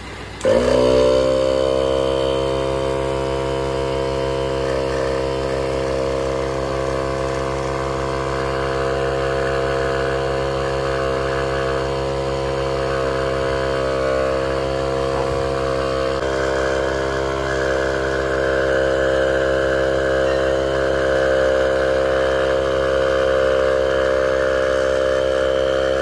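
Bergmann 12-volt portable tyre inflator switched on about half a second in and running with a steady loud droning hum while it pumps air into a car tyre, cutting out at the very end.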